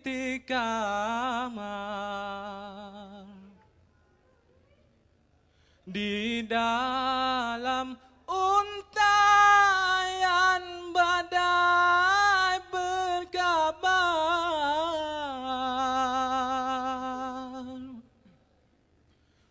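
Dikir barat solo singer: one man's voice, unaccompanied, singing a slow melody with long ornamented, wavering held notes. He breaks off about four seconds in, starts again about two seconds later, and stops near the end.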